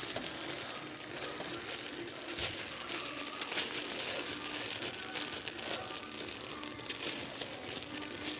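Continuous soft crackling and crinkling from thick liquid-soap paste cooking in a crock pot as it is worked with a plastic spoon.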